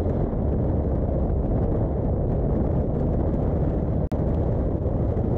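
Jeep Wrangler JK driving over soft desert sand, heard mostly as a heavy, steady rumble of wind buffeting its side-mounted camera with engine and tyre noise beneath. The sound drops out for an instant about four seconds in.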